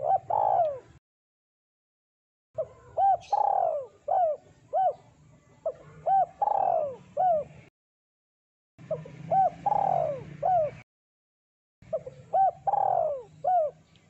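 Spotted dove cooing in repeated phrases. Each phrase is a few short coos around one longer, falling coo, with pauses of about a second between phrases.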